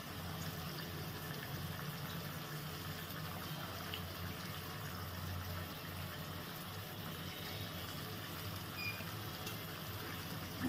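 Spiced water for a fish curry boiling in a wok on a gas burner: steady bubbling.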